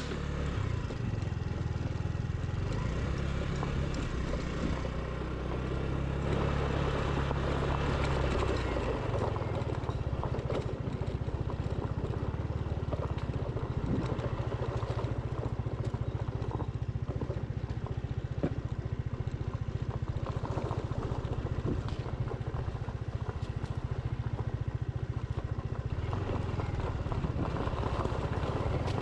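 Motorcycle engine running steadily while being ridden slowly, its low drone shifting a little as the throttle changes.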